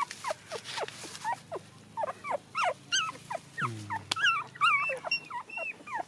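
Newborn puppies whimpering and squealing in short, high-pitched cries, several a second and overlapping, hungry and looking for their mother's milk. One brief low grunt a little past the middle.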